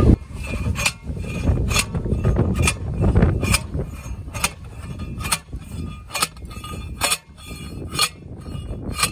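A hand post driver clanging down on a steel T-post, driving it into the soil: about ten ringing metal strikes, a little under a second apart.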